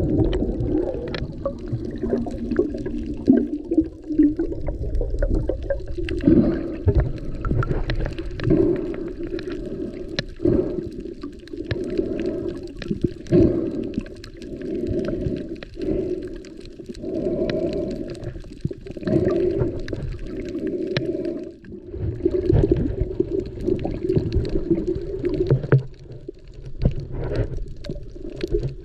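Muffled underwater sound through a camera's waterproof housing: water churning and gurgling in uneven swells, with frequent sharp clicks and knocks.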